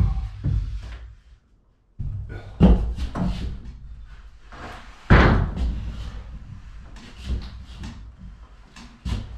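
Knocks and thuds of a large plywood sheet being carried and set in place inside an empty metal shelter. The loudest bang comes about five seconds in and rings on briefly.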